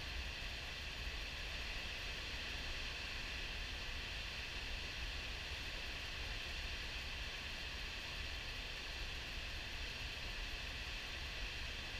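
Steady rush of white water pouring over a diversion dam's spillway gates at high flow, with a low rumble beneath.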